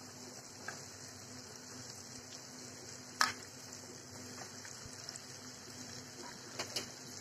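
Faint sizzling of fried masala in a metal kadai as cut drumsticks and potato wedges are dropped in, with one sharp clack about three seconds in and a few light taps near the end.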